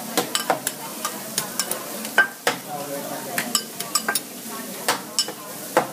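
Beef and mushrooms sizzling on a hot steel teppanyaki griddle, with metal spatulas clicking and scraping against the plate in quick, irregular taps, the sharpest about two seconds in.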